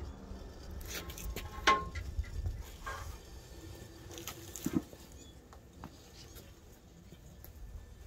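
Scattered knocks and metallic clanks as a cut-off half of a steel Ford Ranger frame is handled and rolled away on its wheels. A louder ringing clank comes about a second and a half in, and a duller thud near five seconds.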